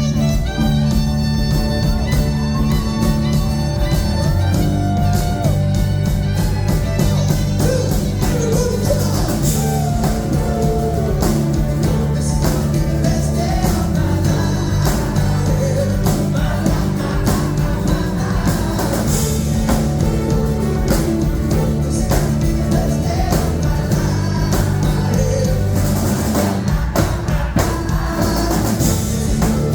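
Live pop-rock band performing with lead vocals over drums and bass, with a steady beat.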